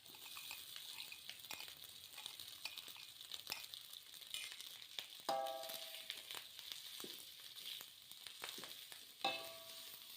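Rice frying in oil in a pan: a faint, steady sizzle with scattered clicks of a spatula stirring and scraping. There are two brief ringing sounds, about five and nine seconds in.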